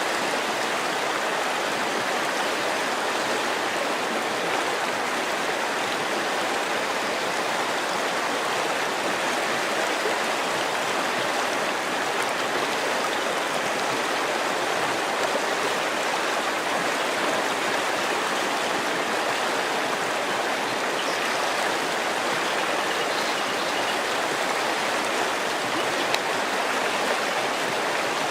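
River water flowing over stones, a steady rushing and babbling without let-up.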